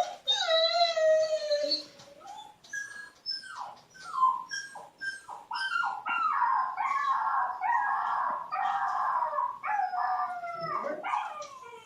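Dog whimpering and howling in high, falling whines: one long whine, then a run of short ones, then a denser stretch of overlapping whines.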